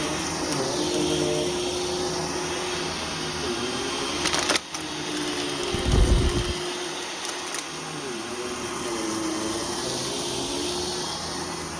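Vacuum cleaner running over carpet, its motor hum dipping and recovering in pitch a few times as it is pushed through slow passes. A brief break about four and a half seconds in, then a low thump about six seconds in.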